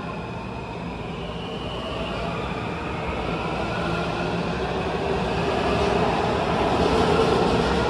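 WMATA Metro train of 6000-series railcars pulling out of an underground station: a steady rolling rumble that grows gradually louder as the train gathers speed past the platform.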